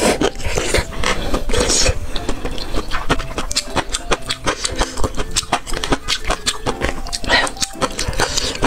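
Close-up noodle eating: slurping bursts at the start, around two seconds in and near the end, with wet chewing and mouth clicks in between.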